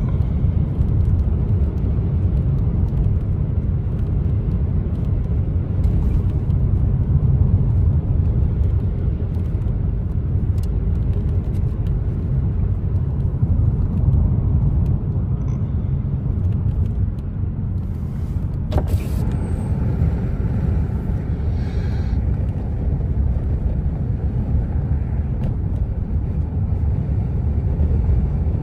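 Steady low rumble of a car driving, with road and engine noise heard from inside the cabin. There is a single sharp click about two-thirds of the way through.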